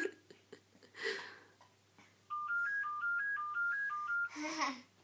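An electronic beeping tune, set off by a baby pressing a button, starts a little over two seconds in: a quick repeating run of stepped high notes. Near the end a baby gives a short vocal squeal over it.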